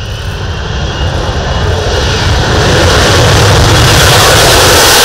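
F-35B jet engine at high thrust during a short takeoff run, getting steadily louder over the first three or four seconds and then holding loud.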